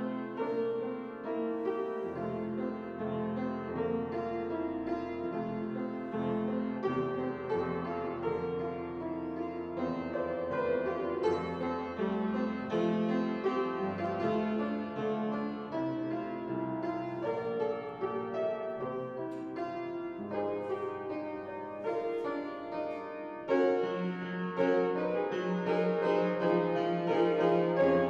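Instrumental keyboard music: chords over held bass notes, a little louder in the last few seconds.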